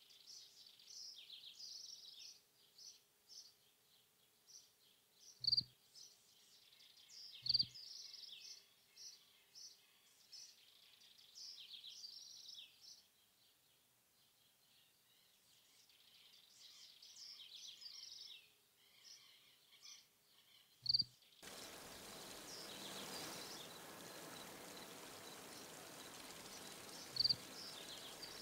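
Faint recorded nature ambience of chirping insects and birds, broken by a few short, sharp interface click sounds. About 21 seconds in it cuts abruptly to the steady rush of a small forest waterfall.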